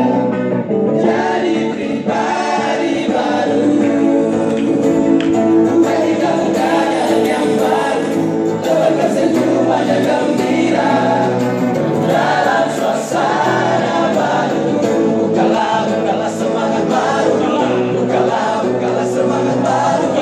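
A group of young men and women singing together into microphones, a medley of Indonesian pop songs, sung continuously.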